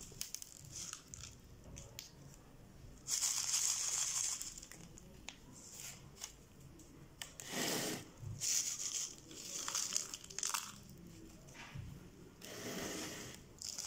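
Expanded clay pebbles poured from a small plastic pot onto the soil surface of a potted cactus, in about four short pours with pauses between.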